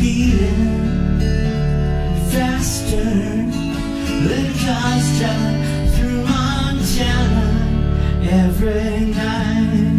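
Song played on a cutaway acoustic guitar, strummed and picked, with a man singing in places.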